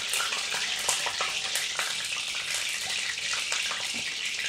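Hot cooking oil sizzling in a kadai, a steady hiss with scattered small crackles.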